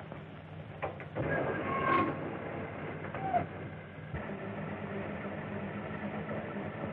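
A few clicks and a short held tone, then a vehicle engine running steadily from about four seconds in, heard through an old, narrow-band film soundtrack.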